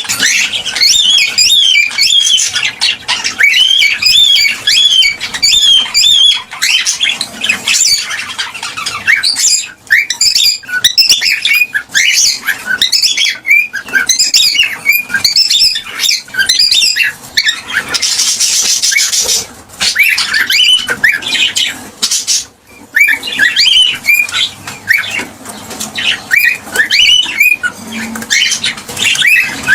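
Cockatiels chirping and calling in rapid runs of short whistles that glide up and down in pitch, with a brief harsh noisy burst about eighteen seconds in.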